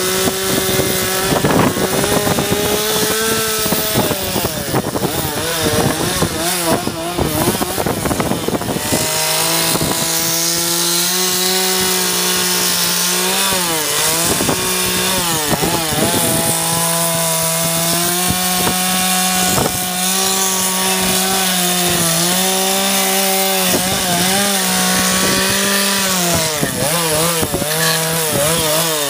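Chainsaw running at high revs while carving a wooden log, its engine pitch dipping briefly and repeatedly as the chain bites into the wood.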